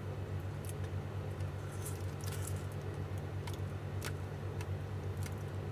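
Scattered small clicks and brief scratches of glue being picked and pulled off a lithium-ion e-bike battery pack, over a steady low hum.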